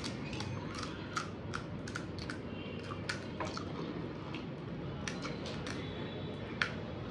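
Crisp fried pani puri shells cracking and crunching in a run of short, sharp, irregular crackles, about two or three a second, with one louder crack near the end.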